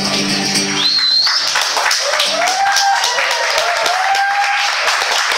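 The last notes of an acoustic guitar and voice die away, and about two seconds in a small audience breaks into applause, with a few cheers over the clapping.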